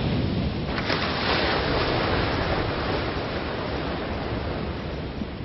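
Rushing white water of a monsoon-swollen mountain river pouring over rocks, a steady rush that brightens about a second in and eases slightly near the end.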